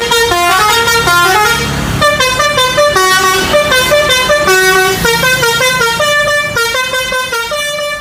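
A bus's musical 'basuri' horn playing a quick tune, a run of short pitched notes stepping up and down several times a second.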